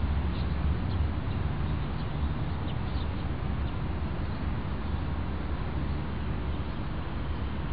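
Outdoor ambience: a steady low rumble with faint, short bird chirps now and then.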